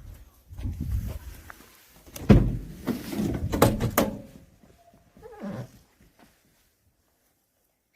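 A series of irregular thumps and knocks with a few sharp clicks, the loudest thump about two seconds in, dying away to near silence for the last two seconds.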